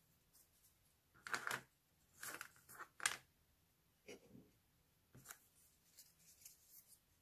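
Small grey cardboard pieces being handled on a cutting mat: a series of short rustles and scrapes at irregular intervals, the loudest about one and a half and three seconds in.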